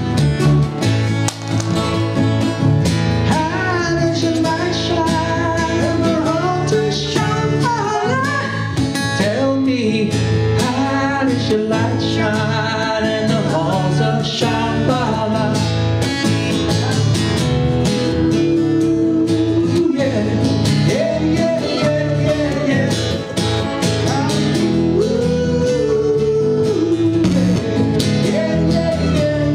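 Live band music: steady acoustic guitar strumming under a sung lead melody.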